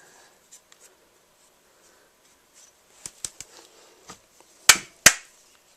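Metal clicks and knocks of a spark plug wrench working in a chainsaw bar's oil holes: a few light ticks, three sharp clicks about three seconds in, then two louder knocks near the end.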